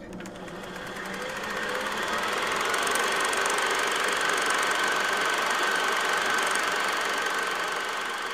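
A steady mechanical whirring with a fast fine rattle and a held high whine. It swells up over the first two seconds and eases off near the end.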